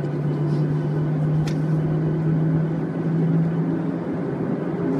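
Airliner engines heard from inside the cabin as the plane moves on the ground: a steady hum with a low droning tone, and one short tick about one and a half seconds in.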